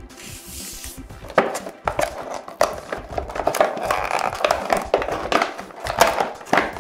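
Clear plastic toy packaging crinkling and crackling as it is handled and pulled open, with sharp snaps of the stiff plastic.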